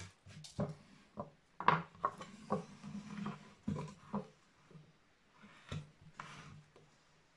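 Irregular knocks and scrapes of wood on wood as a carved wooden relief panel is shifted and turned on a tabletop and wooden-handled carving chisels are set down on it, the loudest knock about a second and a half in, with a short brushing rub near the end.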